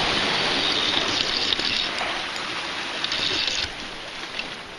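Sea surf washing and splashing against shore rocks, with wind on the microphone; the rush eases a little near the end.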